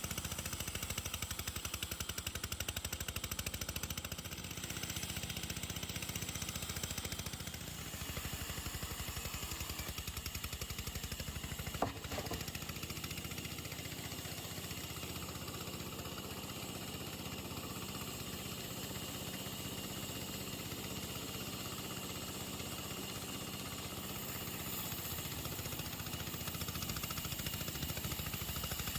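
An engine running steadily, with a single sharp knock about twelve seconds in.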